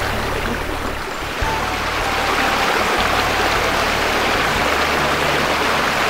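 Snowmelt mountain stream rushing and splashing over rocks, a steady hiss of water that gets louder about a second and a half in.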